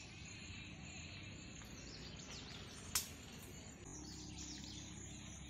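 Faint outdoor ambience, a steady hiss with a few small bird chirps, and one sharp click about three seconds in.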